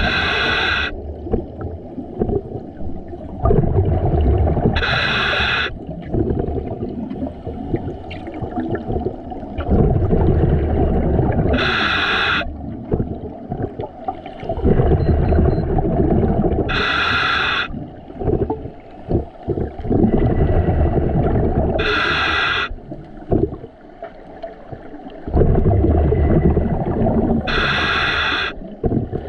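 A scuba diver's regulator breathing underwater: six breaths, each a short hiss of inhalation about every five to six seconds, followed by several seconds of rushing exhaled bubbles.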